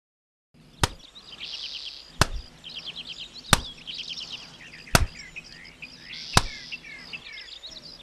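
Wet laundry slapped hard against a wooden washing plank, five sharp slaps about a second and a half apart, over birds chirping.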